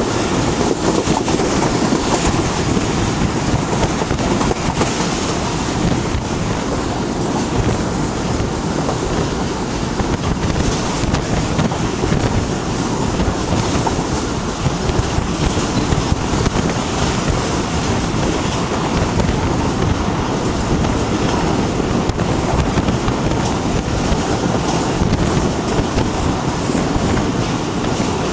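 Passenger train running at speed, heard from a phone held out of the coach window: rushing wind buffets the microphone over the steady rumble of the wheels on the rails.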